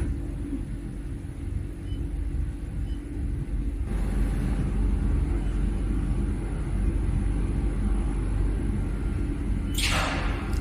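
Steady low machine rumble with a faint high whine, growing a little louder about four seconds in, and a short hissing whoosh near the end.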